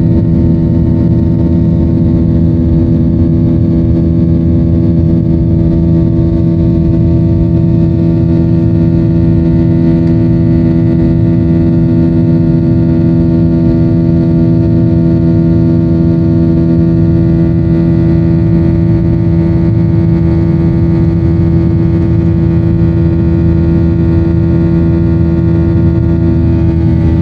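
Airliner's jet engines at takeoff power, heard from inside the cabin: a loud, steady roar with steady humming tones underneath, through the end of the takeoff run and into the climb.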